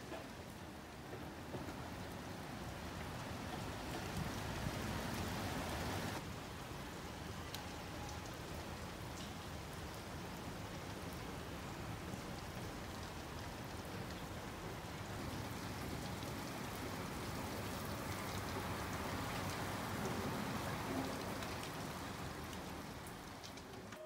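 Steady rain falling, an even hiss of drops with a few sharper ticks.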